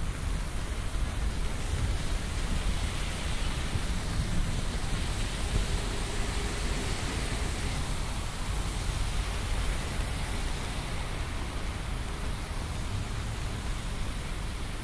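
Steady rain hissing over the low rumble of city street traffic, an even wash of noise with no single sound standing out.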